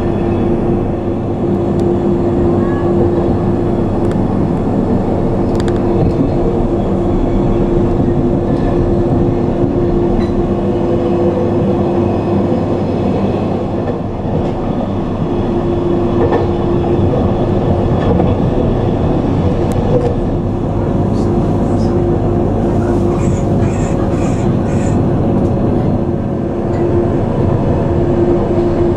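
Glacier Express electric train running, heard from on board: steady rolling noise of wheels on rail with a held low hum. A few brief high chirps come near the end.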